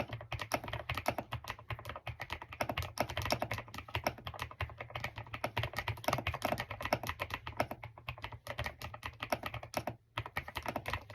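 Fast typing on a Yunzii C75 mechanical keyboard: a dense, continuous run of key presses, with a brief pause about ten seconds in.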